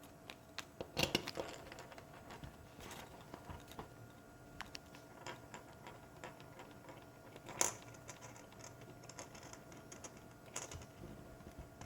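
Irregular light clicks and taps of laptop parts and screws being handled during reassembly, loudest about a second in and again near eight seconds, over a faint steady hum.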